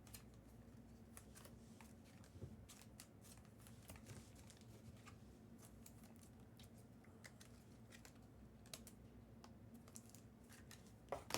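Near silence with faint, irregular light clicks and taps scattered throughout, and a slightly louder knock just before the end.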